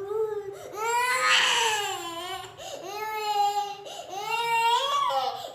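A toddler crying in long wails: three drawn-out cries of about a second each, rising and falling in pitch, after a short one at the start. The crying is from being given a traditional massage.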